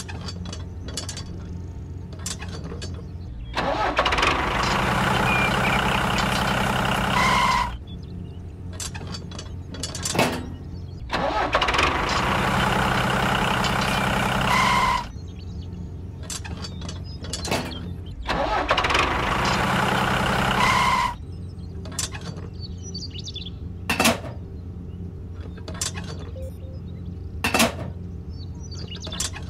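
Tractor engine sound effect idling steadily, with three louder stretches of three to four seconds each. Several sharp clicks sound in the second half.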